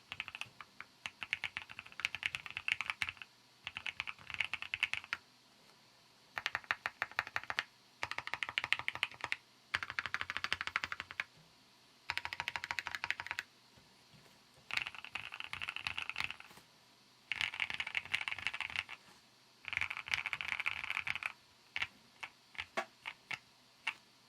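Sea75 custom mechanical keyboard being typed on quickly, in runs of rapid keystrokes a second or two long with short pauses between. Near the end come a few separate key presses.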